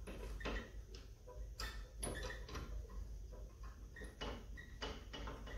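Faint, irregular metallic clicks and taps of bolts being handled and threaded back into their holes by hand under a lawn tractor's step.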